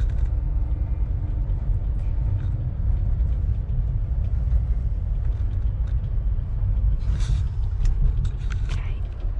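Steady low rumble of a moving passenger train heard from inside its cabin, with a few short clicks and rattles in the second half.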